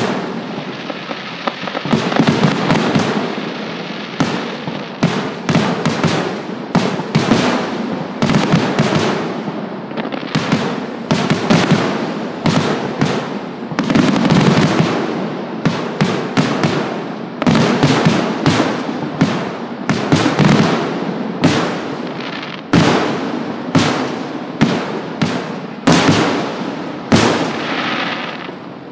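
Aerial firework shells bursting in a rapid, dense barrage of sharp booms, several a second, with their echoes filling the gaps; the bursts stop just at the end.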